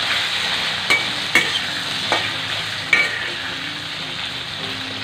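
Diced potatoes sizzling in hot oil in a metal kadai while a metal spatula stirs them, with a few sharp clicks of the spatula against the pan.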